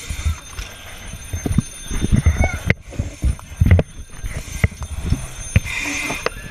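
Irregular knocks, clunks and bumps of firefighters moving and working in full turnout gear inside a smoke-filled room, with the helmet camera jostling.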